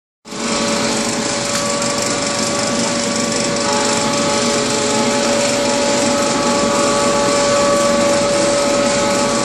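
Drinking-straw extrusion machine running: a loud, steady mechanical noise with a constant whine from its electric motor and drive.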